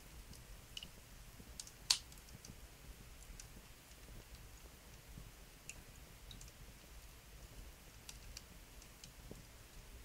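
Wood fire crackling faintly in a stone fireplace: scattered small pops and ticks from the burning logs, with one sharp, louder pop about two seconds in.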